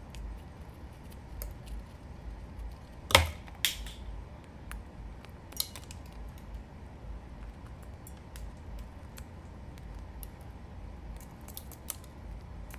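Sun conure cracking and nibbling a peanut held in its foot, heard close up: scattered small crunches and clicks, with one loud sharp knock about three seconds in and a few smaller ones after it.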